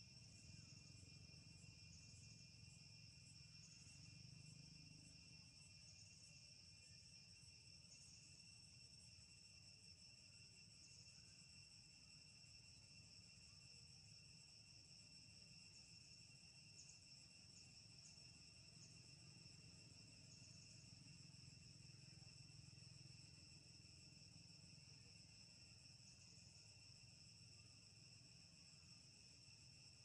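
Faint, steady, high-pitched insect chorus: a continuous drone with no breaks.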